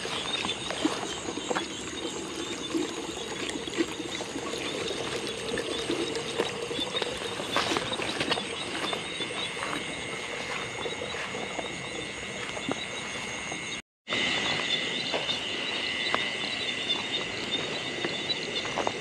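Night chorus of frogs and crickets calling steadily in a field, with light rustles and clicks of footsteps through grass. The sound cuts out for a moment about two-thirds of the way through.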